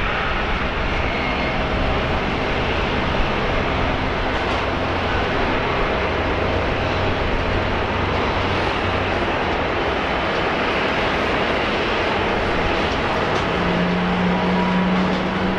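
Jet engines of a Boeing 777-200ER airliner running as it rolls on the runway: a steady, even rush of engine noise. A low steady hum joins in near the end.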